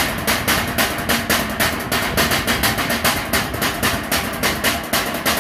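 Wooden box drum struck in a fast, even beat of about five strokes a second: the beat change (break) of a Samoan fire knife dance drumming pattern.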